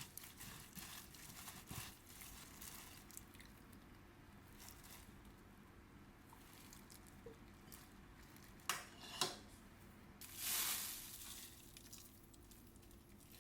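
Quiet kitchen handling sounds: faint stirring and crackling, then two sharp clicks of utensils or dishes about nine seconds in, followed by a brief rush of noise.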